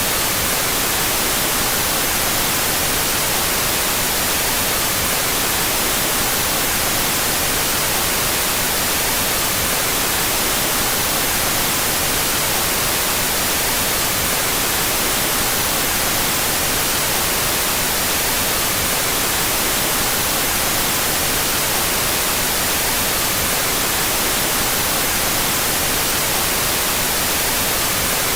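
Synthetic white noise, a steady unchanging hiss strongest in the treble, played with its two stereo channels out of phase.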